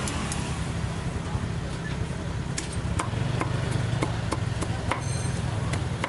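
A cleaver chops through roast pork onto a thick wooden chopping block: a run of sharp chops, about three a second, starting around halfway through. A steady low engine-like hum runs underneath.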